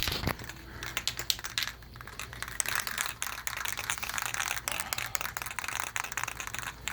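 Aerosol spray paint can being shaken, its mixing ball rattling inside in quick, uneven clicks.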